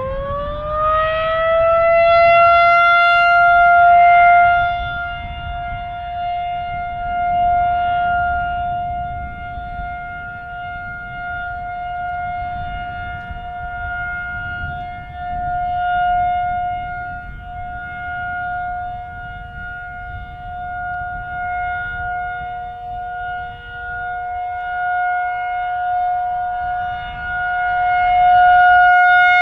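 Federal Signal 2001-SRN electromechanical outdoor warning siren sounding the Alert signal: it winds up from a low pitch over the first two seconds, then holds one steady tone. The tone grows louder and softer every few seconds as the siren head rotates.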